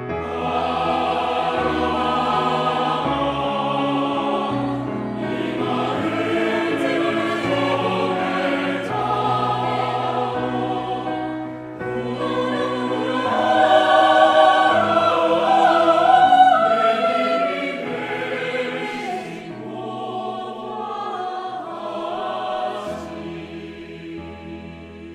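Mixed choir singing sustained chords. The sound swells to its loudest a little past the middle, then softens toward the end.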